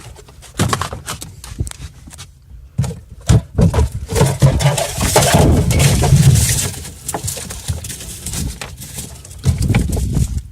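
Gear clattering and knocking in a boat's storage compartment as someone rummages through it for pliers, with irregular sharp knocks throughout and a louder stretch of rattling and scraping in the middle.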